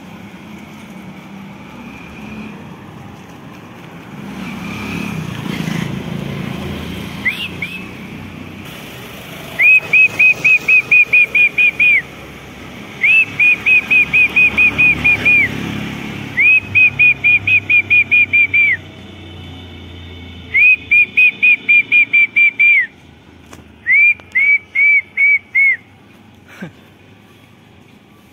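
Whistling: five bursts of quick, high, identical notes, about four a second, each note rising and falling and each burst lasting two to three seconds, with short pauses between bursts, starting about ten seconds in. A low rumble of traffic-like noise sits underneath in the first half.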